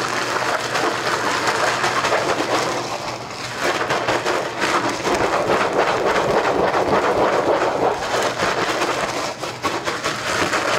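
Sterile grain rustling and rattling inside a plastic spawn bag as the bag is shaken and kneaded to break the agar wedges into fragments and spread the mycelium through the grain. It is a dense, continuous crackle, with brief lulls about three seconds in and near the end, over a faint steady hum.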